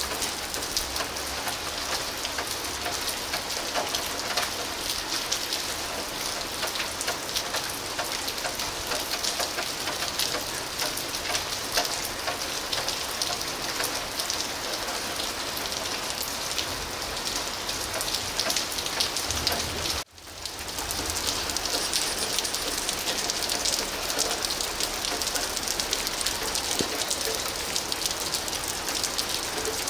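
Steady rain falling on wet pavement and puddles: a dense patter of many small drops. The sound drops out for an instant about two-thirds of the way through, then returns.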